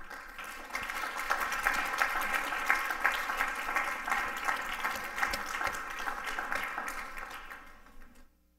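Audience applauding: a dense patter of many hands clapping that swells over the first second, holds, then dies away shortly before the end.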